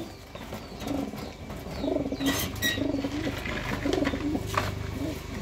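Domestic pigeons cooing: several birds giving short, low, repeated coos that overlap throughout, with a few light clicks in between.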